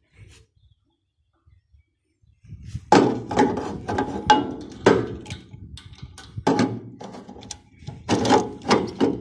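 Irregular hollow metal knocks and clanks from a round metal cap on a chain being handled over a tank opening on an old fire truck's deck, starting about two and a half seconds in, with the loudest cluster near the end.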